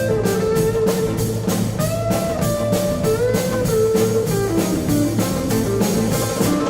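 Instrumental rock music: a lead electric guitar holds long notes, bending up into some of them, over a steady drum beat and bass.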